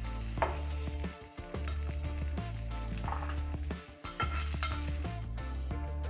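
A plastic spatula scraping and scooping cooked ground turkey in a nonstick skillet, with a couple of sharper scrapes or knocks about half a second in and about four seconds in. Background music with a steady bass line plays underneath.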